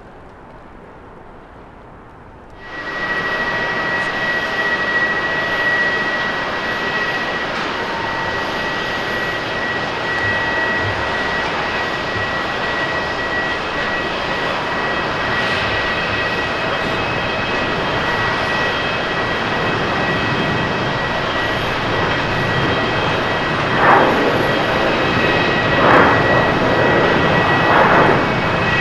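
Boeing 737-800's CFM56-7B turbofans at takeoff thrust during the takeoff roll: steady jet noise with a steady high whine over it, starting suddenly a few seconds in. Near the end come three short louder surges about two seconds apart.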